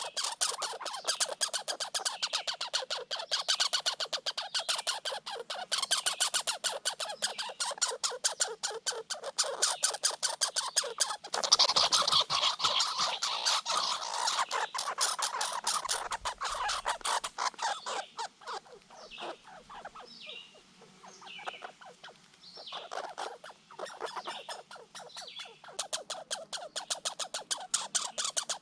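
Red squirrel chattering: a rapid, harsh rattle of clicks, the territorial call that red squirrels use to drive another off food. It thins out to scattered chirps a little past halfway, then rattles again near the end.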